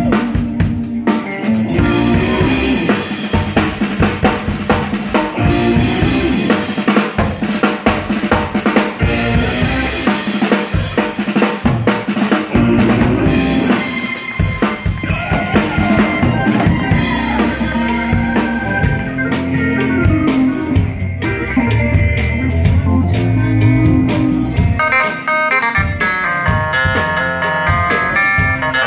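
Live band playing a groove with the drum kit to the fore: kick drum, snare and rimshots over a repeating bass line. Near the end a run of higher melodic notes comes in.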